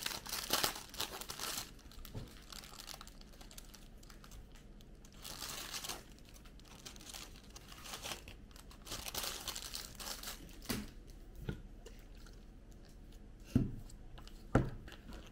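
Crinkling of a clear plastic bag of aluminium-foil nail-polish-remover wraps as it is opened and the wraps are handled, in several bouts. Two dull knocks near the end.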